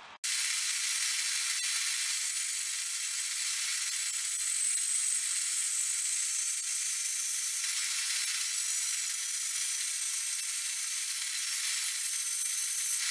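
Bandsaw cutting a small maple block, heard as a loud, steady hiss with no motor hum beneath it. It starts and stops abruptly.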